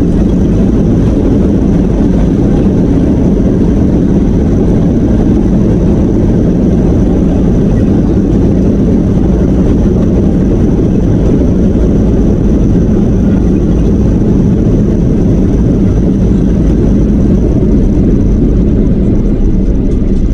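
Steady loud rumble inside the cabin of a Boeing 737-800 rolling along the runway after landing: engine noise and wheel rumble, deep and unchanging.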